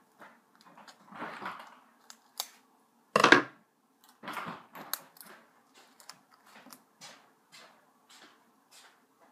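Small crafting sounds at a table: scissors snipping, with light clicks and rustles of handling. One louder, short rasping rustle comes about three seconds in.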